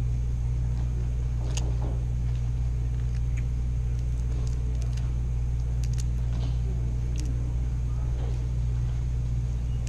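Steady low rumble, with a few faint scattered cracks and clicks of a boiled crawfish shell being peeled by hand.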